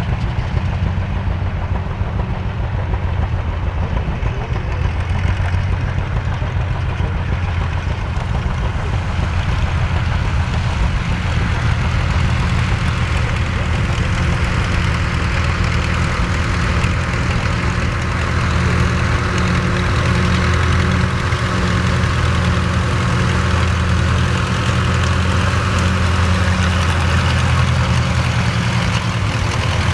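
Wallis 20-30 tractor's four-cylinder engine running steadily at a slow idle, with a rapid even pulse of firing strokes.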